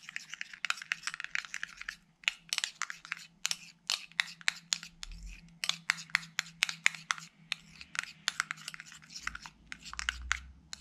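Metal teaspoon stirring a thin, watery shampoo-and-salt slime mixture in a glass bowl: a quick, irregular run of small clicks and scrapes of spoon against glass.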